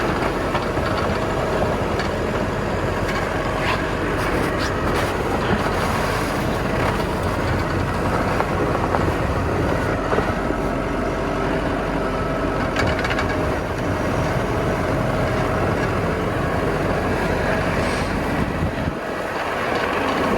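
Tractor engine running steadily under load while clearing snow, a low rumble with a faint steady whine and occasional clicks and knocks. The low rumble drops away near the end.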